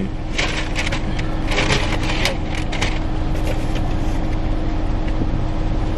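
Steady low hum inside a car's cabin, like an idling engine or running fan, with a run of short crackling rustles over the first three seconds while a pastry is eaten.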